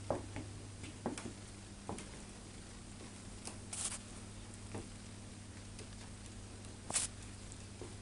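A magpie's claws tapping on a bare wooden floor as it walks: light, scattered taps and clicks, the sharpest about 4 and 7 seconds in, over a steady low hum.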